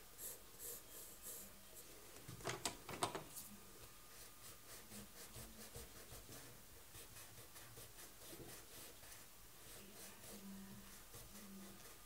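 Pencil scratching short strokes on sketchbook paper, faint and rhythmic, with two sharper taps a little after two and three seconds in.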